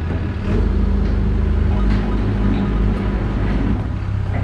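Caterpillar backhoe loader's diesel engine running steadily under load as the machine drives forward working its front loader bucket.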